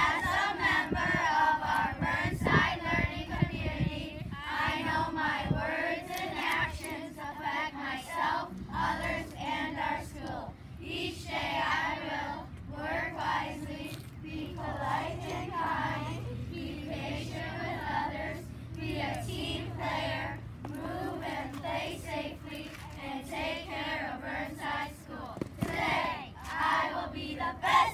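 A group of children singing together in unison, in phrases with short breaks between them.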